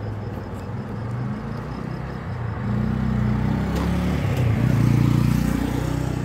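A motor vehicle engine running close by, its pitch shifting up and down, getting louder from about three seconds in and loudest around five seconds before easing a little.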